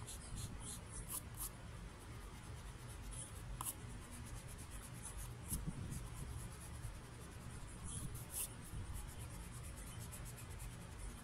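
Faint scratching and rubbing of a pencil on paper, in short irregular strokes.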